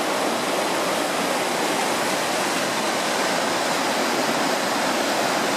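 Stream water rushing steadily over rocks, the stream running a little high.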